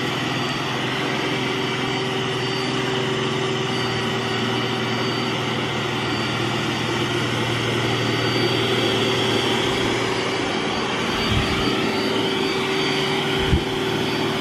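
iRobot Roomba s9+ robot vacuum running on max power, a steady whooshing suction noise with a held tone, as it vacuums up scattered rice. A low hum drops out about ten seconds in, and a couple of soft knocks come near the end.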